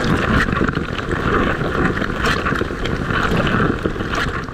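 Dishwasher running a wash cycle: water from the lower spray arm jets and spatters inside the tub as a steady, loud rushing, easing off near the end.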